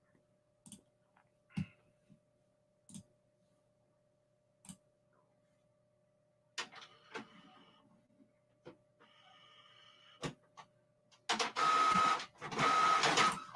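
A printer printing a shipping label. A few faint clicks come first, then mechanical whirring from about halfway. It is loudest in two runs near the end, each with a thin steady whine and a short break between them.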